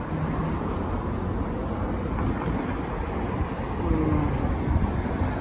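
Street traffic noise from cars passing on a busy multi-lane road, with wind rumbling on the microphone.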